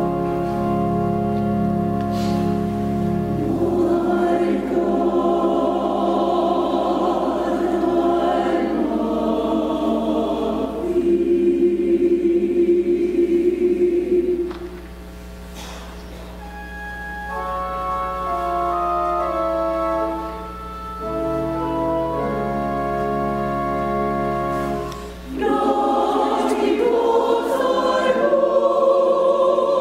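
Church choir singing an anthem with organ accompaniment, in sustained chords. The music drops to a softer passage about halfway through, then the full choir swells back in near the end.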